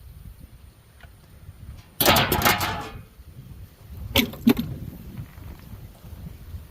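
A burst of metal clattering about two seconds in, lasting about a second, then two sharp knocks with a short ring a little after the middle: loose metal parts handled and dropped while a refrigerator is scrapped.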